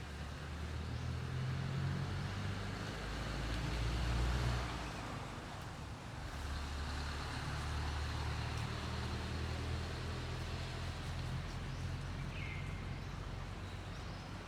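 A motor vehicle's engine running, a low rumble that swells to its loudest about four seconds in, dips briefly, then rises again and holds steady.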